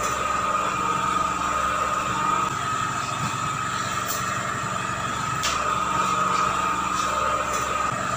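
Steady mechanical hum with a constant high whine, the low rumble dropping a little about two and a half seconds in, and a few faint clicks.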